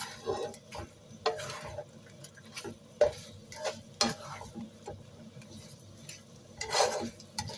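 Spatula scraping and knocking against a pan in irregular strokes, stirring shrimp through a thick sauce, over a faint sizzle.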